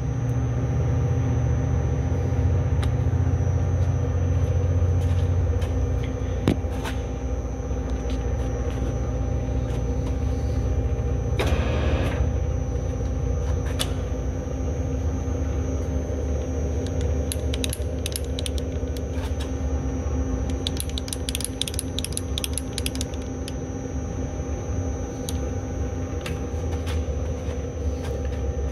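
Kearney & Trecker 2D rotary head mill running, its end mill cutting around the outside diameter of a driveshaft yoke as the rotary axis turns the part, trimming the oversize OD down to fit the tubing. A steady low drone with scattered sharp ticks, which come thicker about two-thirds of the way through.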